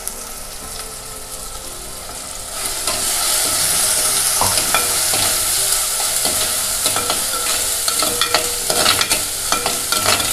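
Onions, tomatoes and a freshly added ginger-garlic-cumin paste frying in oil in a clay pot, sizzling. About two and a half seconds in the sizzle turns much louder, and a steel spoon stirring the masala clicks and scrapes against the pot.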